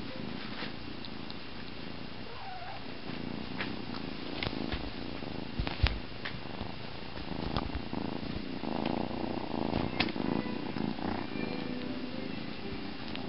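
Kitten purring steadily and close, with two sharp knocks about six and ten seconds in.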